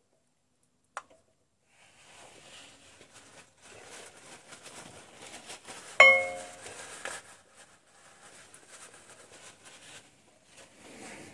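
Cloth rag rustling as it wipes around a car's rear brake caliper bracket, with a small click about a second in. About six seconds in, a single sharp metal clink rings briefly.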